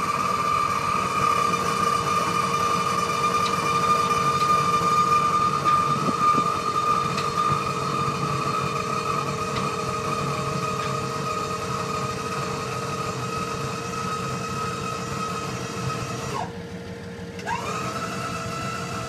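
Battery-powered electric hydraulic pump on a dump trailer running with a steady whine as it raises the loaded bed. It cuts out for about a second near the end, then starts again. The owner thinks the system may be a little low on fluid.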